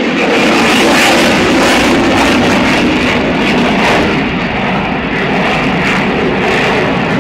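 Loud, steady jet noise from a Eurofighter Typhoon's twin EJ200 turbofan engines in flight.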